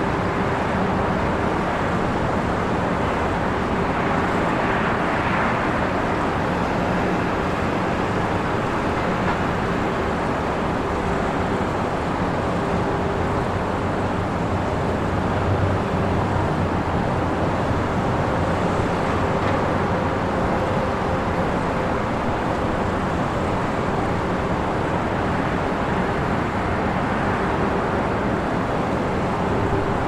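Downtown city traffic heard at a distance from a rooftop: a steady, unbroken wash of road noise with a faint steady hum running through it.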